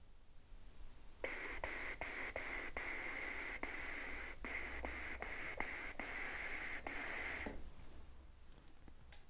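Air blown through a trumpet mouthpiece without buzzing the lips: a steady breathy hiss of about six seconds. A rhythm of short tongue strokes articulates it while the airflow runs on unbroken between them, the continuous air stream that tonguing should rest on.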